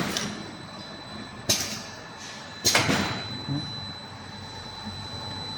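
Two sharp mechanical clacks from a semi-automatic lamination machine, a little over a second apart, over a faint steady machine hum with a thin high whine.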